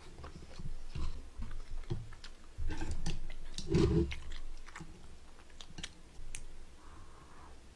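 Close-miked chewing of a mouthful of spicy braised chicken in sauce, with many small wet mouth clicks. The chewing is loudest about three to four seconds in.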